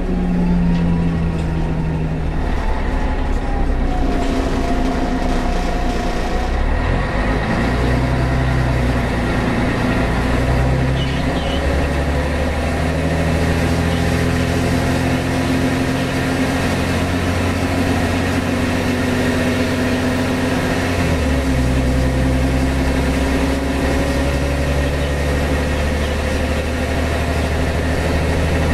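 Scania DSC11 six-cylinder diesel and Voith D864 automatic gearbox of a Scania CN113 bus, heard from inside the cabin while driving. The engine note shifts up and down in steps several times, with a steady whine above it.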